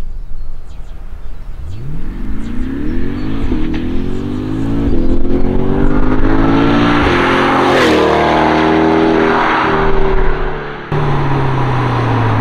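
C8 Corvette Stingray's 6.2-litre LT2 V8 accelerating hard toward the microphone, its note climbing steadily, then dropping in pitch as the car passes about eight seconds in. Near the end the sound changes abruptly to a steadier low engine note.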